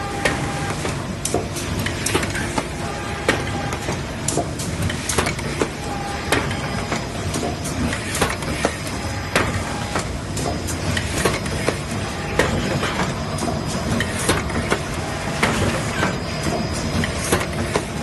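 ZK-660D puzzle box making machine running: a steady mechanical hum with frequent sharp clacks and knocks from its moving parts.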